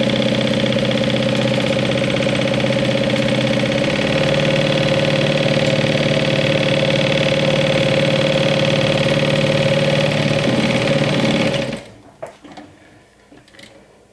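Sewing machine stitching steadily along a fabric edge, basting a pocket in place; its pitch shifts about four seconds in, it wavers as it slows, and it stops suddenly about two seconds before the end, leaving a few faint handling clicks.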